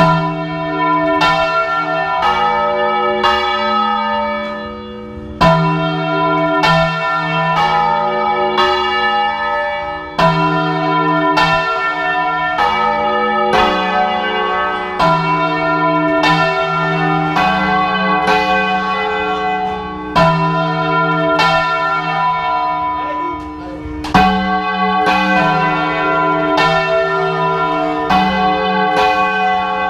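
Church bells swung full-circle by hand in a Spanish volteo, their clappers striking in a continuous peal of overlapping ringing tones at several pitches. A louder strike comes about every five seconds.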